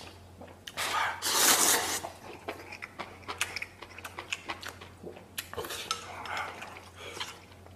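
A person slurping up a mouthful of instant noodles about a second in, then chewing, with wooden chopsticks clicking repeatedly against a stainless-steel bowl.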